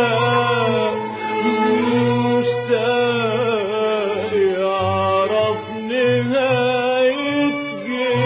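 Arabic song: a sung melody with gliding, ornamented pitch over string accompaniment and a steady bass.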